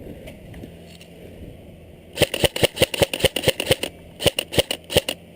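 Airsoft gun firing a rapid string of sharp shots, about six a second, starting about two seconds in, with a brief pause before it resumes.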